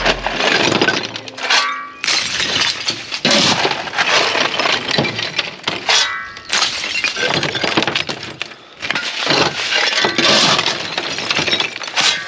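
Shovel scraping up broken plaster, stone and tile rubble from a trailer bed and flinging it onto a heap, the rubble clattering and crunching in a burst every second or so.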